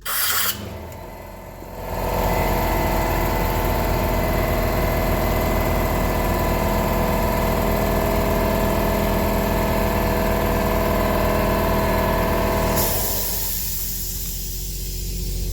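John Deere 6081 diesel engine running steadily, a few seconds after the fan bearing has been replaced. It settles into an even hum about two seconds in, and near the end the hum drops back under a hiss.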